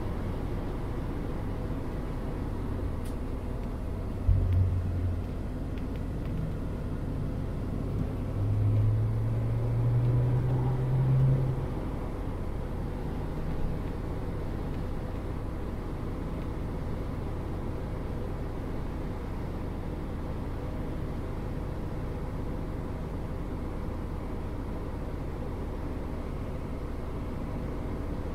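The four-cylinder engine of a 2001 Mazda MX-5 1.8 running at low revs, heard from inside the cockpit. There is a short rise in engine sound about four seconds in, and a longer gentle acceleration from about eight to twelve seconds with the pitch rising slightly, before it settles back to a steady low drone.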